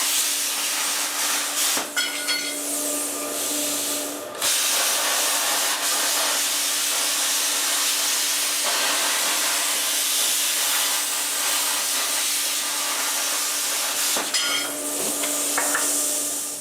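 Power cutting tool hissing steadily as it cuts latch openings in toolbox door panels along a template, with brief breaks about 2 and 4 seconds in and again near the end.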